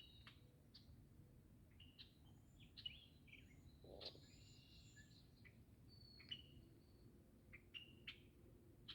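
Faint birdsong: scattered short chirps and brief whistled notes from several birds.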